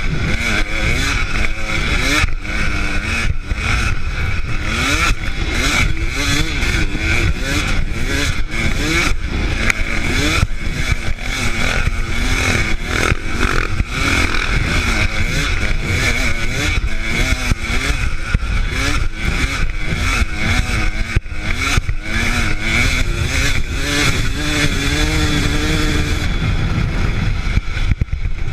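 Dirt bike engine running hard while being ridden along a rough dirt track, its revs rising and falling, over a heavy wind rumble on the bike-mounted microphone and clattering from the bumps.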